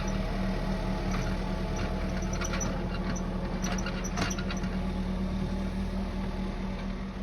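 Tractor engine running steadily under load while ploughing, with scattered light clicks and squeaks over it.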